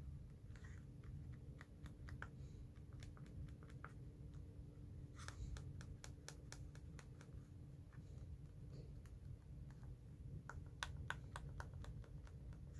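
Buttons on a small 24-key LED-strip remote control being pressed over and over, giving faint sharp clicks in irregular runs. There is a dense burst about five seconds in and another near eleven seconds in.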